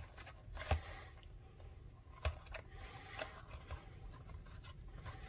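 Hands handling a pink ribbon and a small paper box while tying a bow: soft rustling with a few light knocks, the loudest under a second in and about two seconds in.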